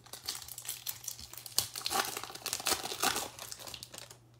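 Foil wrapper of a Topps Chrome baseball card pack being torn open and crinkled, a dense run of crackling that dies away near the end.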